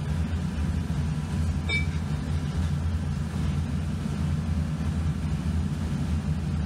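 Steady low machine drone, with one short sharp click about two seconds in.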